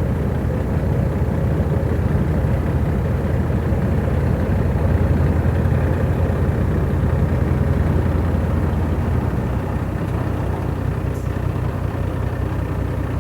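Heavy vehicle engine running steadily, a low drone that eases slightly after about nine seconds.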